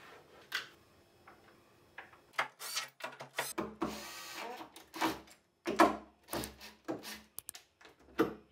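A few light knocks of MDF boards being set in place, then, from about two seconds in, a cordless Makita impact driver run in several short bursts, driving screws through MDF spoilboard strips into an aluminium T-slot table.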